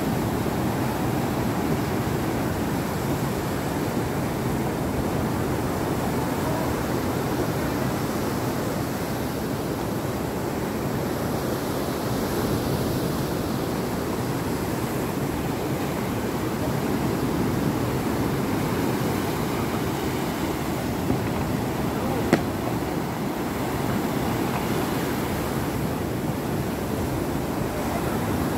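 Rough sea surf breaking and washing onto a beach in a steady, unbroken rush. A single sharp knock sounds about three-quarters of the way through.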